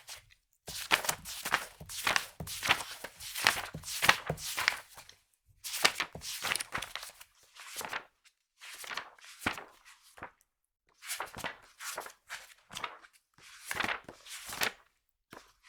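Magazine pages flipped rapidly, a quick run of crisp paper flicks and rustles, stopping briefly and starting again several times.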